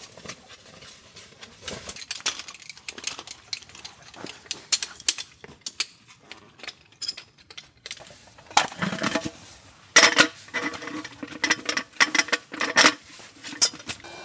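Many sharp clinks, taps and clatters of small hard objects being handled. The clatter grows busier and louder from about eight seconds in.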